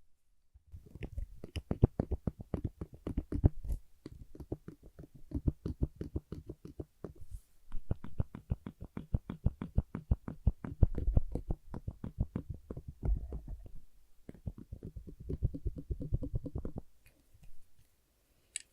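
Fast, even tapping and clicking on a black clip, many strokes a second, with two short pauses and a single sharp click near the end.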